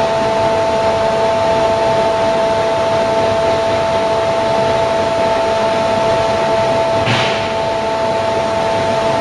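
Webster & Bennett Titan CNC vertical borer running under power: a steady whirring noise with a few steady whining tones over it. About seven seconds in there is a short hiss, and one of the whining tones drops away.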